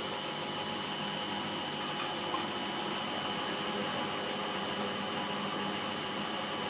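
Candy GO DF800 washing machine spinning its drum at about 300 RPM: a steady whirr of drum and motor with thin, constant high tones over it. The load is a bit unbalanced.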